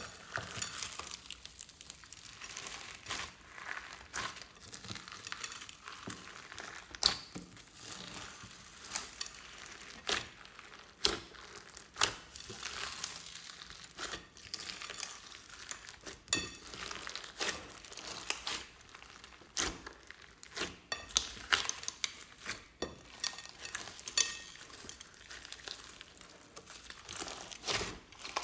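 Glossy slime mixed with foam beads and sequins being squeezed and kneaded by hand, giving an irregular stream of crackling, clicking and popping. Sharp pops stand out every second or so.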